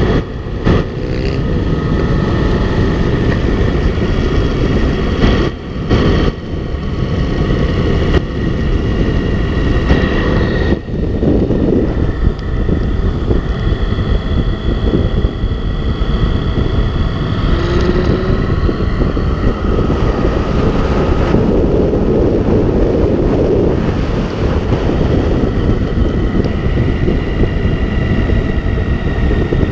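Motorcycle riding at highway speed: heavy wind buffeting on the microphone over the engine's steady drone.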